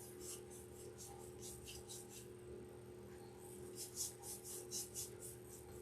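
Paintbrush stroking paint onto a pine board: soft, repeated brushing swishes, about two or three a second, with a pause of a second or so midway. A faint steady hum lies underneath.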